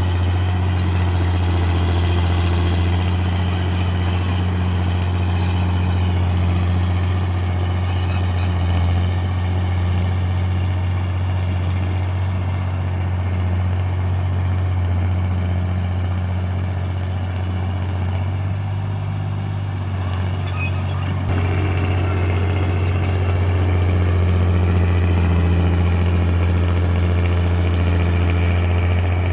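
FiatAllis AD9 crawler tractor's diesel engine running steadily under work. The note sags briefly about two-thirds of the way through, then picks up again sharply.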